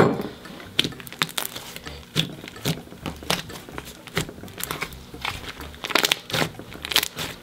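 Thick mashed potato slime being stretched and squeezed by hand, giving off a run of irregular sharp crackles and pops: the slime's sizzles.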